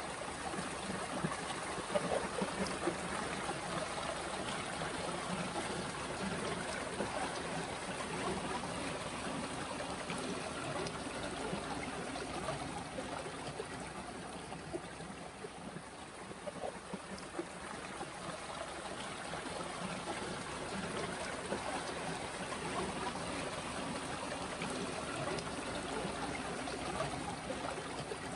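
Stream water flowing and trickling steadily, a little softer around the middle.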